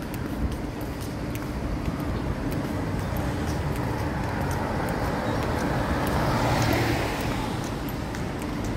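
Street traffic noise: a car approaches along the road and passes close by, its tyre and engine noise swelling to a peak about six to seven seconds in, then fading.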